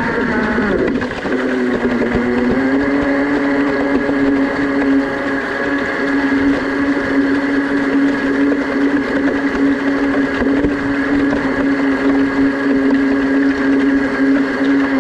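A scratch-built radio-controlled model speed boat's motor running at speed, heard from on board, with a steady tone over the hiss of water rushing past the hull. The pitch sags for about two seconds near the start, then climbs back and holds steady.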